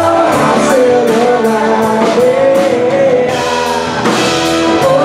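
Live rock band playing: a man singing into a microphone over electric guitar, bass guitar and drums, with cymbals marking a steady beat.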